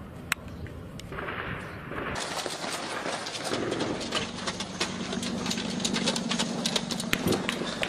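Small-arms gunfire: one sharp shot just after the start, then from about two seconds in many irregular cracks over a rough rushing noise.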